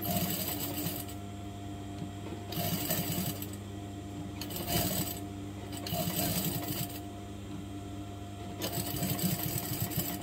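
Sewing machine stitching in five short runs with brief pauses between, over a steady low hum.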